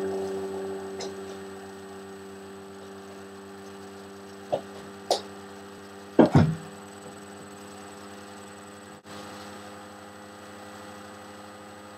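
Steady low electrical hum in the recording, with a couple of light knocks and a louder clatter about six seconds in as the camera is handled.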